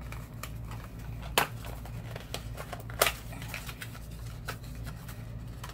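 Small paperboard cosmetics carton being opened and the product pulled out: light scraping and rustling of card, with two sharp clicks about a second and a half apart.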